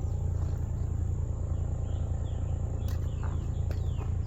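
Outdoor ambience: a steady low hum with a faint high whine above it. In the second half come several short falling bird chirps and a couple of sharp clicks.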